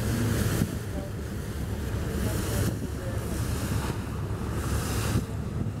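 Wind buffeting the microphone in gusts over a steady low rumble.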